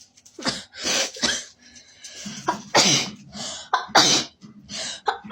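A person sneezing and coughing over and over in short, sharp bursts, about ten in quick succession, the reaction to a nasal swab irritating the nose.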